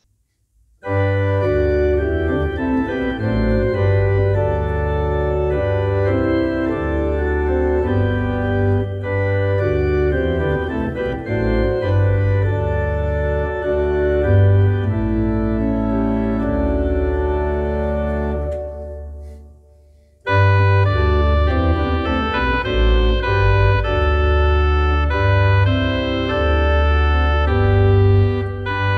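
Organ playing slow music of held chords. It fades out about nineteen seconds in and starts again a second later.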